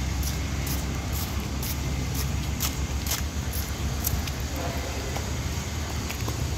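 Footsteps on a concrete path, sharp light ticks about two a second, over a steady low rumble.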